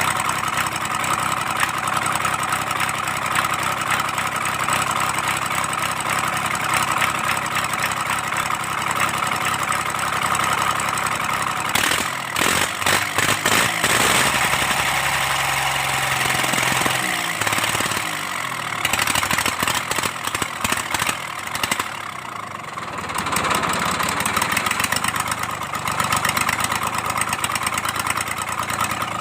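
Kubota D1402 three-cylinder diesel engine idling steadily. About halfway through, its note changes and turns uneven with a rapid clatter for a few seconds, then settles back into a steady idle.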